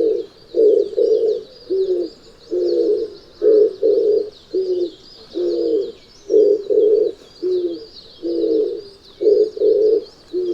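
Oriental turtle dove cooing: a long run of short, low, hoarse coo notes, mostly in pairs and triplets with brief pauses between the groups. Constant high chirping goes on in the background.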